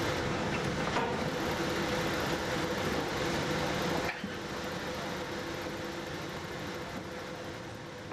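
Steady drone of a lake freighter's machinery with a constant hum and a few light clicks; it drops a little in level about four seconds in.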